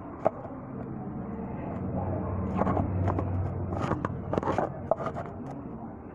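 Hand tools clicking and scraping against metal car parts, about a dozen sharp irregular knocks, over a low rumble that swells through the middle and fades near the end.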